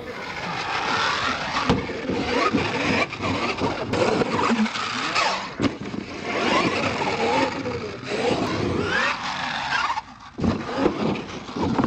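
Radio-controlled monster trucks' electric motors whining, rising and falling in pitch as the throttle is worked, with a few sharp knocks as the trucks land and hit the ramps.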